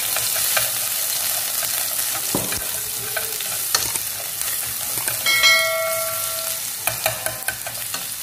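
Minced garlic sizzling in hot oil in a frying pan, stirred with chopsticks that click against the pan now and then. A bell-like ding rings for about a second just past halfway.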